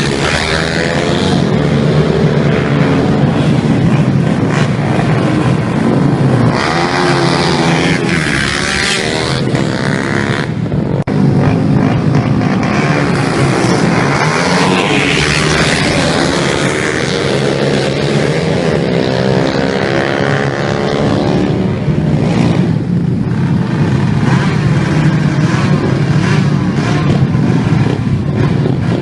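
Several small motorbike and scooter engines running and revving at once, their pitch rising and falling as they pass, with no pause.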